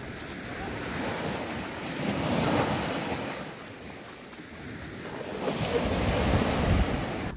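Sea waves breaking and washing up the shore in two surges, one about two seconds in and a louder one near the end, with wind rumbling on the microphone.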